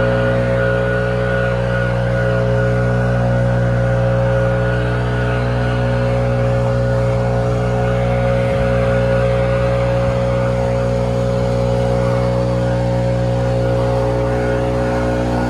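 An engine running at a steady, unchanging speed: a constant hum with no revving.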